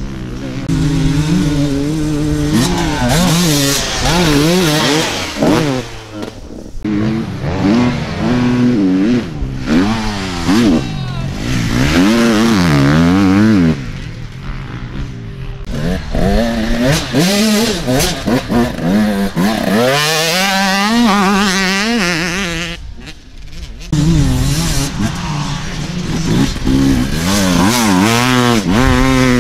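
Enduro dirt bikes ridden hard on a dirt track, one after another, their engines revving up and dropping back again and again as the riders accelerate out of turns and shift.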